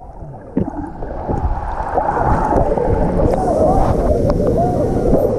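Wind buffeting the microphone over a background of many overlapping voices.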